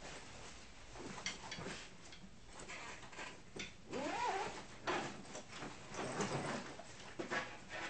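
Scattered light knocks and clatter as a drummer settles in at a drum kit, with a short squeak that rises and falls about four seconds in.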